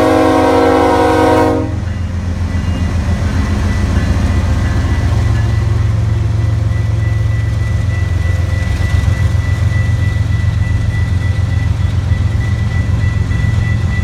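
Locomotive air horn holding a chord of several notes, cut off sharply about a second and a half in. After it, the passing train rolls on with a steady low rumble, rapid rhythmic wheel clatter and a thin steady high tone.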